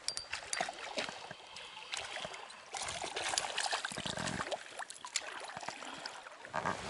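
Shallow river water trickling and splashing, louder for a couple of seconds in the middle, with scattered light clicks from a spinning rod and reel being handled while a fish is played.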